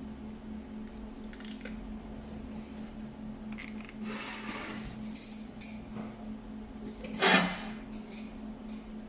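Metal pieces clinking and scraping as they are handled, over a steady electrical hum. There are a few light clatters, a longer scrape in the middle and one louder clank near the end.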